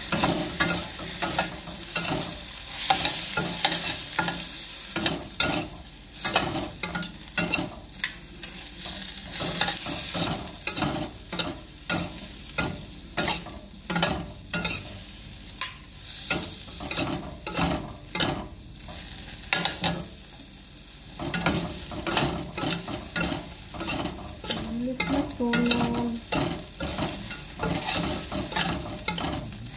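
Sliced pork and onions stir-frying in a stainless steel wok: a metal spatula and spoon scrape and clank against the pan over a steady sizzle, with a brief lull about two-thirds of the way through.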